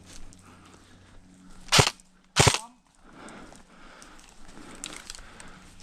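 Airsoft gun firing two sharp shots about half a second apart, the second slightly longer.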